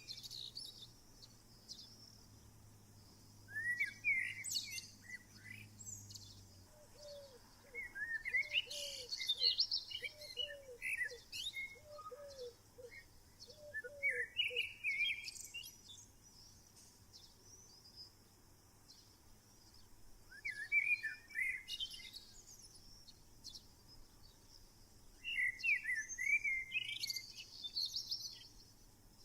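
Wild songbirds singing in a forest: short phrases of quick chirping notes every few seconds, with quiet gaps between, and a run of lower repeated whistled notes in the middle.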